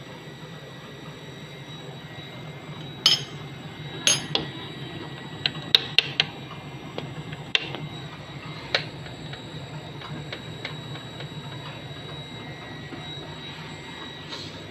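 A series of sharp clicks and knocks of hard objects being handled, about nine in the first half, the first two the loudest, over a steady low hum.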